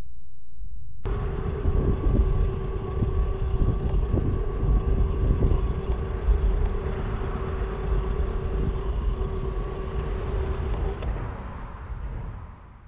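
Traxxas TRX-4 RC crawler driving over rough ground: a steady whine from its electric motor and gearbox over a heavy rumble with scattered knocks. It starts suddenly about a second in and fades out near the end.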